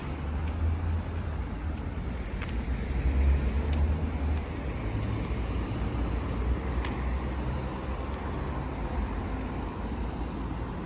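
Street traffic: a low, steady rumble of passing cars, swelling twice in the first half, with a few faint clicks.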